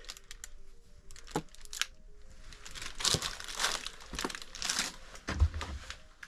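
Footsteps and clothing rustling and crunching over debris on an old wooden floor, in irregular bursts with scattered clicks and a low thump a little after five seconds in.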